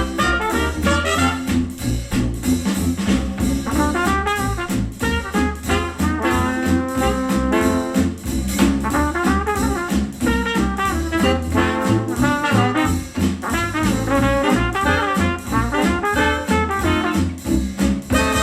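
Retro jazz instrumental with brass horns over a steady bass line, played back through a JBL Charge 4 Bluetooth speaker.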